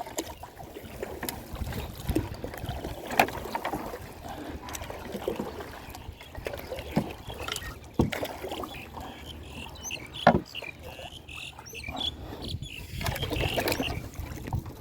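Water sloshing and splashing around a swimmer, with a few sharp knocks and a bubbly flutter about two-thirds of the way through.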